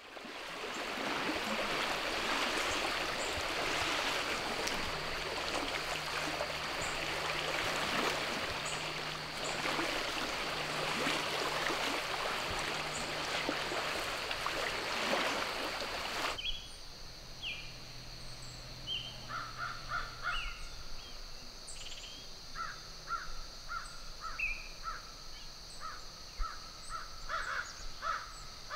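Outdoor ambience: a steady rushing noise that cuts off suddenly about halfway through, giving way to a steady high hum with many short bird calls.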